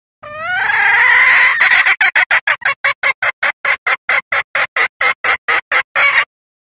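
Red junglefowl hen calling: a long drawn-out note lasting about a second and a half, then a fast even run of short clucks, about five a second, that stops abruptly. It is the hen's call that trappers use to lure males.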